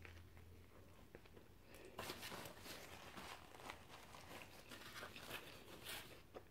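Faint crinkling and rustling of a paper napkin being handled and wiped across the mouth, starting about two seconds in, over soft chewing of a Big Mac.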